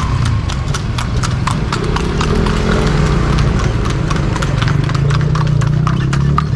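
Horse's hooves clip-clopping on a hard road in a quick, even rhythm, about four strikes a second, over a steady low rumble.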